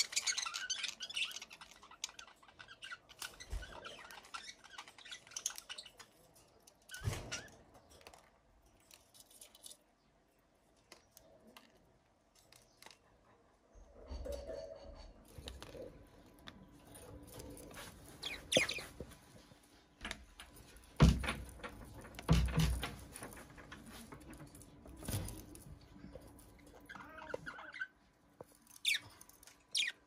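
Pet budgerigars chirping and chattering, busiest in the first few seconds. Several short knocks and thumps come later.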